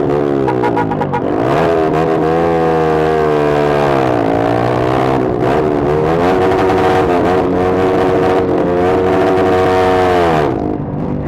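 Engine exhausting through a Pro Liner muffler with no dB killer, revved and held high. The revs drop back briefly about a second and a half in and again about four seconds in, then fall off near the end.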